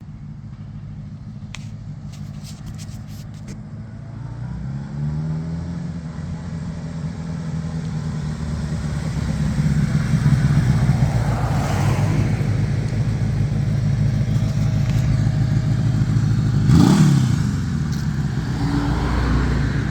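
1981 Honda CB650's air-cooled inline-four engine running and drawing closer, growing steadily louder over the first half with a few rising pitch sweeps as it accelerates. A brief louder burst comes about three quarters of the way in. The engine is running well, its flooding No. 2 carburetor cleared.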